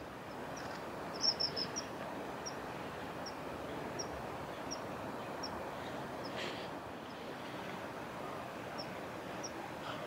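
Common kingfisher calling: short, high, thin whistles, a quick run of several about a second in, then single calls roughly every 0.7 s, over a steady background hiss.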